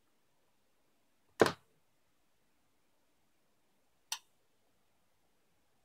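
Two short, sharp clicks, about a second and a half apart from the start and then near four seconds in; the first is louder and deeper than the second.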